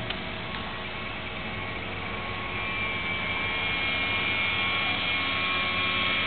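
A motor vehicle's engine running steadily, with a faint steady whine over it; it grows a little louder about halfway through.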